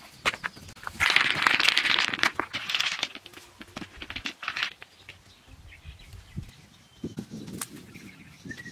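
River stones clacking and grating against one another as they are set into dry sand: a few sharp knocks, then a dense crackling scrape lasting about two seconds, then more scattered knocks.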